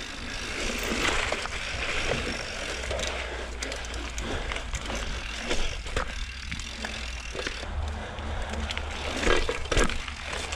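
Mountain bike rolling along dirt singletrack: tyre noise over dirt and roots, with frequent short clicks and rattles from the bike.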